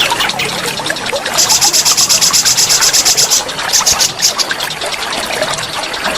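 Water running steadily over a waterfall, with a songbird singing a fast run of repeated high notes, about ten a second, from about a second and a half in for some two seconds, then a shorter run near four seconds.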